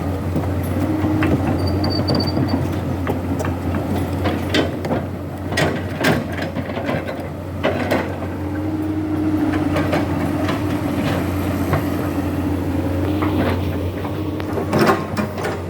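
Komatsu PC200 hydraulic excavator running: a steady diesel engine drone with many metallic clanks and knocks, and a steady tone that comes in briefly near the start and again for several seconds in the middle.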